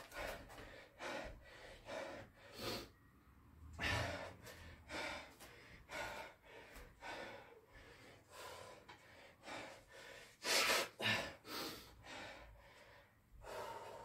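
A man breathing hard in quick, heavy breaths, out of breath from exhausting exertion, with two louder gasps about ten and a half seconds in.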